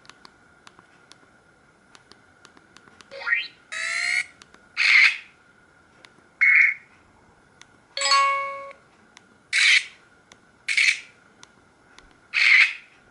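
Samsung SGH-E900 ringtone playing from the phone's speaker: a sequence of short sound effects, starting about three seconds in with a rising glide, followed by about six brief noisy bursts spaced roughly a second apart, one of them holding several tones.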